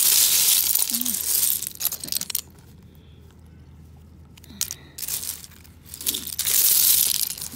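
Broken seashells and beach pebbles crunching and clattering as a hand digs through them close to the microphone. The sound comes in two stretches, about two seconds at the start and about a second near the end, with a few separate clicks between.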